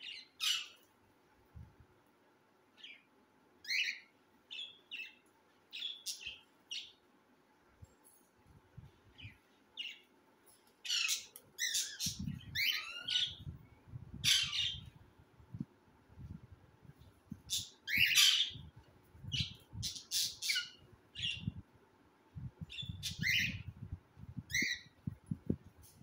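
Cockatiel chicks calling: a long run of short, harsh squawks and chirps, one after another with short gaps, busiest and loudest around the middle. Low muffled bumps and rumbles are heard under the calls in the second half.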